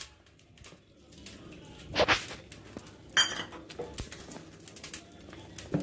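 Wire whisk scraping and clicking against a stainless steel mixing bowl as cake batter is stirred, with a sharper ringing clink about three seconds in.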